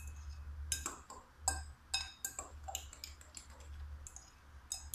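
A metal utensil clinking repeatedly against a cut-glass bowl while beating raw egg mixed with grated carrot, onion and chili, about two sharp clinks a second in an uneven rhythm.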